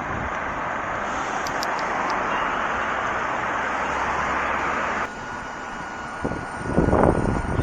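Steady rush of city street traffic that swells and breaks off abruptly about five seconds in, then wind buffeting the microphone in uneven gusts.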